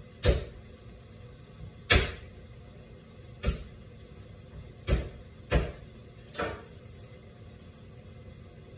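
Six sharp knocks from kitchen work, unevenly spaced over about six seconds, the first two the loudest. A steady low hum runs underneath.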